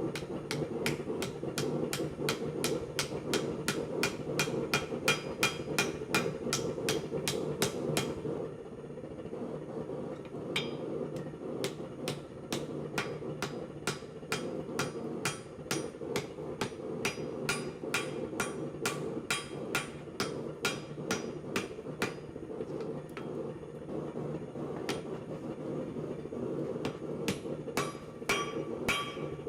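Blacksmith's hand hammer striking hot axe steel on an anvil in a quick, even rhythm, about four blows a second, lighter after about eight seconds, with a couple of ringing blows near the end. A steady low rumble runs underneath.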